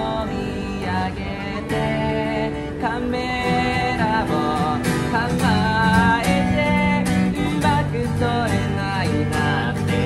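A man singing a song in Japanese while strumming an acoustic guitar in a steady rhythm.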